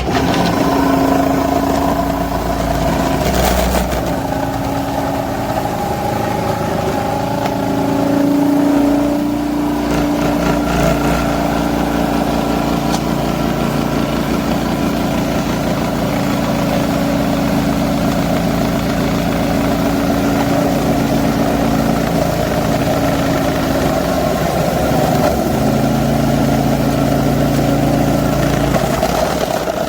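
Cuisinart food processor motor starts up abruptly and runs steadily, spinning the fine grater disc, with its hum shifting a little in pitch now and then.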